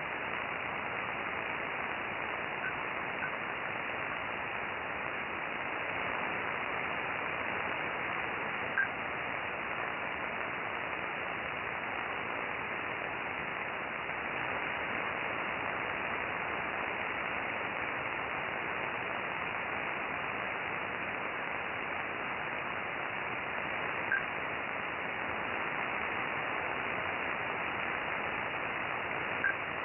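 Steady radio receiver static with a few short, sharp clicks scattered through it, several seconds apart, the last three louder than the first faint pair: the unidentified clicking signal received on 13.560.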